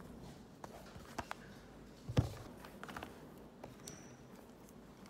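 Desk items being handled while packing up: light clicks and rustles from a tablet's folio case and a charger cable being coiled, with one dull thump about two seconds in.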